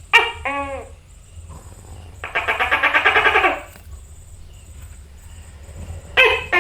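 Tokay gecko calling. It gives a quick two-part call at the start, a rattling, pulsing stretch of about a second and a half in the middle, and another call near the end.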